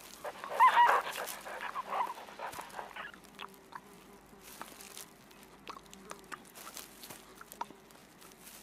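Red panda giving a short, wavering squeak about a second in, followed by a softer call, then faint clicks and rustles of movement.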